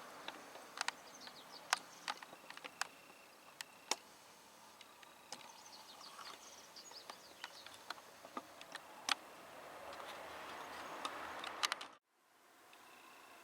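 Faint outdoor background with scattered sharp ticks and a few quick, falling high chirps. It cuts to silence about a second and a half before the end.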